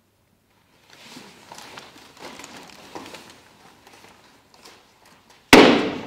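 Rustling and shuffling of several performers in long robes getting up and moving about on a wooden stage floor. About five and a half seconds in comes a sudden loud burst of noise, the loudest sound, which fades within half a second.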